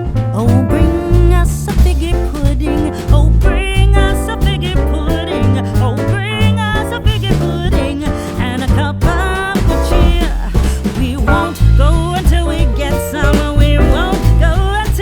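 Background music with a strong bass beat and a wavering melody line, possibly a singing voice or lead instrument, over plucked guitar.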